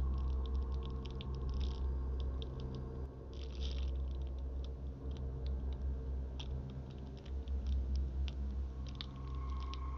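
Dry grass and leaves rustling and crackling in irregular sharp clicks, over a low steady drone.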